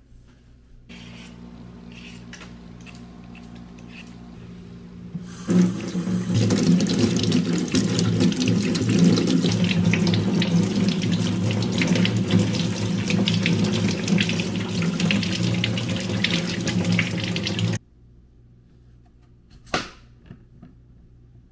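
Kitchen tap running into a stainless steel sink while a potato is rubbed clean under the stream; the water is softer at first, turns loud about five seconds in, and stops abruptly about eighteen seconds in. A single sharp knock follows near the end.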